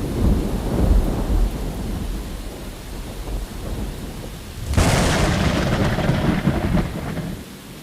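Thunder rolling over steady rain: a low rumble dies away, then a sharp crack about five seconds in is followed by more rumbling that fades out near the end.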